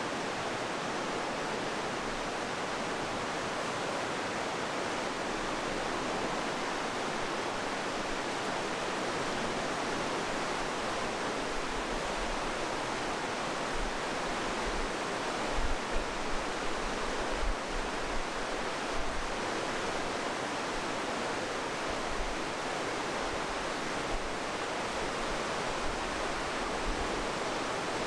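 Steady rush of a fast mountain river running through a narrow rock gorge, with a few low thuds about halfway through.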